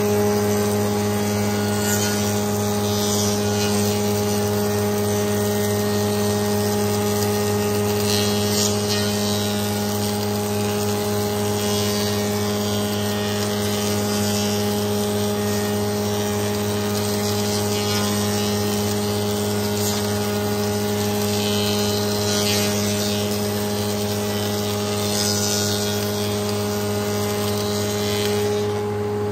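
Spindle moulder running with a Steff 2034 power feeder driving boards past the cutter block: a steady machine hum, with the cutting noise of the cutters taking wood swelling and fading several times as boards go through.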